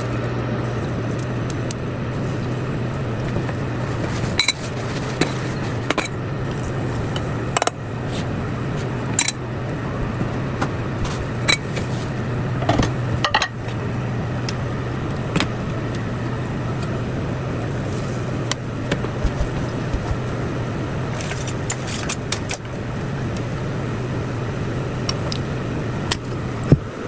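Kitchen sounds: a steady low hum with a hiss under it, broken by scattered short clicks and clinks of utensils, the sharpest one near the end.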